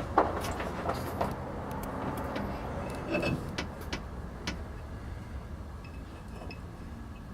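Scattered metallic clicks and knocks as the transmission and tools are handled during its fitting to the engine, over a steady low hum.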